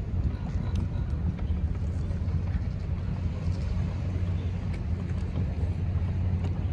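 Sailboat's inboard diesel engine running steadily with a low, even drone while motoring through a harbor.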